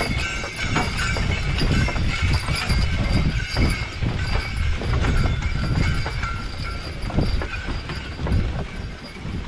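Sleigh bells jingling steadily on a sleigh pulled by a pair of Belgian draft horses, over irregular hoof thuds and a low rumble of the moving sleigh.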